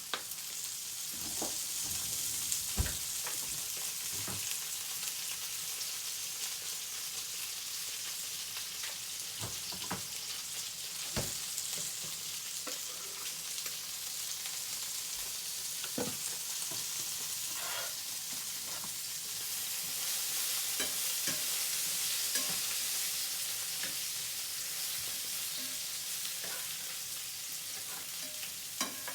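Eggplant frying in oil in a pan, sizzling steadily, with scattered knocks of a utensil stirring and turning the pieces.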